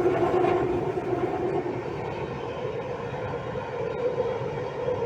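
Delhi Metro train running between stations, heard from inside the car: a steady rumble with the hum of the traction motors, a little louder for the first second and a half.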